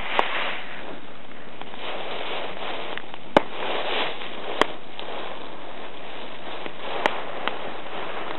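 Campfire of dry wood burning with a steady hiss, broken by sharp crackling pops: four loud ones spread through, with fainter ones between.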